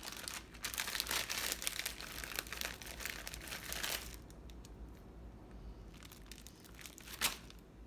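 Plastic package of turkey pepperoni crinkling as hands dig slices out of it. The crinkling is dense for the first few seconds, then turns to lighter rustling, with one sharp click near the end.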